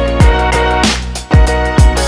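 Electronic background music with a steady beat of deep kick drums under sustained chords; the music dips briefly just past the middle before the beat comes back.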